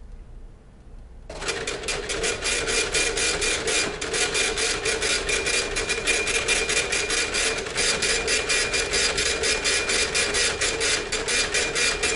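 Epson TM-U220B dot-matrix impact receipt printer printing a test page: a rapid, evenly pulsing chatter of the print head hammering line after line, starting about a second in.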